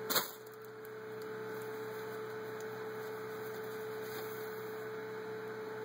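Steady electrical hum on one pitch over a background hiss, with a brief rustle just after the start.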